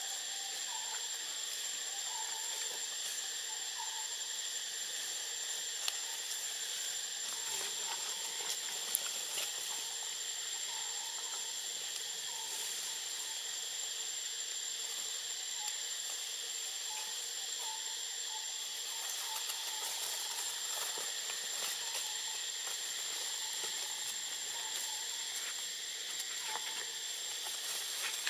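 Steady insect chorus: an even high hiss with a constant thin whine above it, and faint short chirps now and then.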